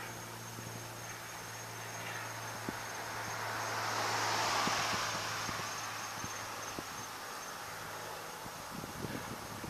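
Crickets chirping in a steady high trill over a steady low hum, while a broad rushing noise swells to a peak about four to five seconds in and then fades away.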